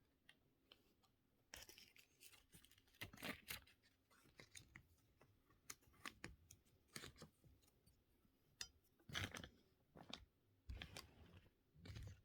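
Faint, irregular clicks and taps, some in quick clusters, with low room tone between them.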